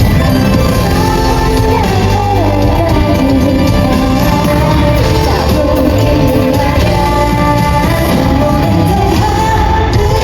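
K-pop song played loud through a concert PA, with women singing a melody over the backing track.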